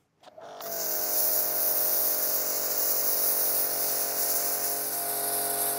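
Güde GHD-225 electric pressure washer starting up about half a second in and then running steadily. Its motor and brass pump hum under the hiss of a 0° (red nozzle) water jet spraying brick paving.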